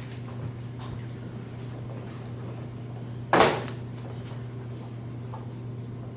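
Luggage bags dropped onto a stage floor, one short loud thump about three and a half seconds in, over a steady low hum.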